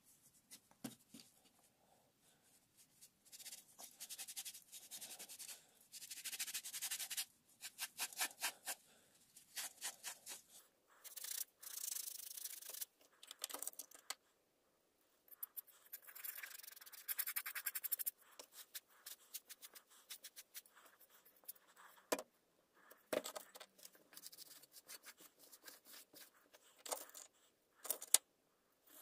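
Cloth and bare hands rubbing over the painted steel shell of an M40/M42 helmet in runs of quick back-and-forth strokes with short pauses, wearing down the fresh paint to age it. Two sharp knocks come in the later part, from the helmet being handled.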